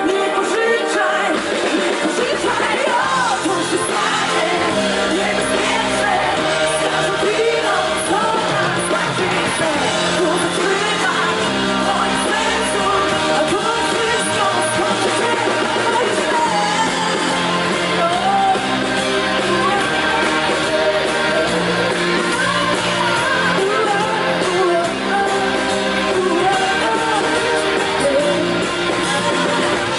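Live pop concert heard from the audience: a woman singing into a microphone over an amplified band with electric guitars and a violin.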